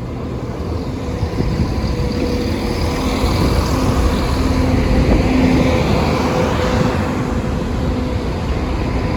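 Train passing over a level crossing: a continuous rumble with a steady hum that swells to its loudest about five seconds in and then eases.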